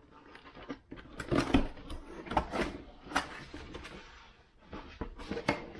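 A cardboard helmet box being opened by hand: irregular scrapes, rustles and knocks as the flaps are pulled up and the inner carton's lid is lifted.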